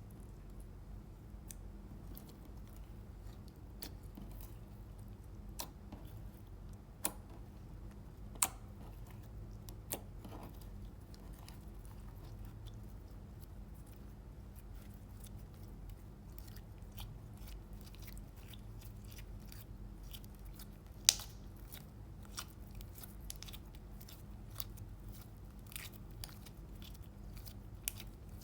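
Slime being kneaded and stretched by hand, giving scattered sharp clicks and small pops, with one louder pop about three-quarters of the way through.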